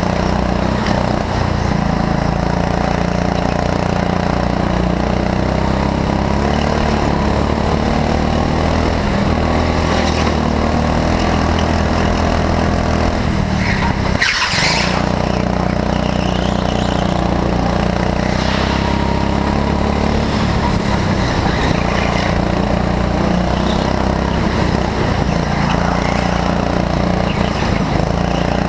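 Go-kart engine running hard, heard from onboard the kart, its pitch shifting as it goes through the corners. About halfway through the engine note briefly drops out and there is a short burst of high hiss.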